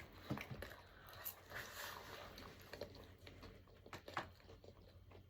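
Near silence, broken by faint scattered clicks and soft mouth sounds of someone chewing marshmallow Peeps candy.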